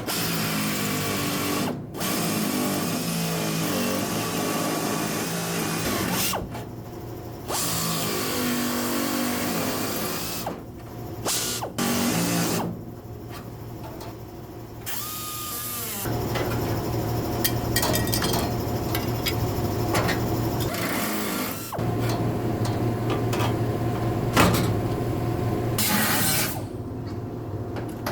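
Power tools working sheet metal in a run of short clips, each starting and stopping abruptly, with a motor whine that rises and falls in pitch in the first part.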